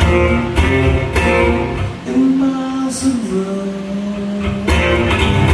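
Acoustic guitar strummed in chords, with a man singing long held notes over it.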